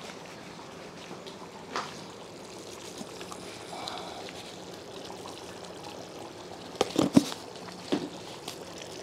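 Thick yogurt-based chicken gravy bubbling at a boil on high heat, a steady soft bubbling with a few sharp pops, the loudest cluster about seven seconds in.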